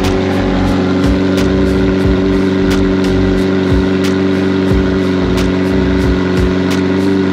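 McLaren 765LT's twin-turbocharged V8 idling steadily, with background music with a beat underneath.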